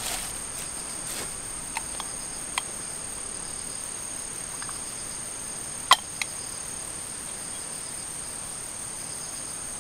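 Insects trilling in a steady, high, unbroken drone, with a few short metallic clicks as a hot sandwich maker is handled. The loudest click comes about six seconds in, followed quickly by a lighter one.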